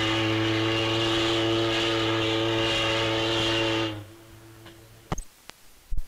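The SS President Coolidge's steam whistle sounding one long, deep, steady blast that cuts off about four seconds in, followed by a few sharp clicks.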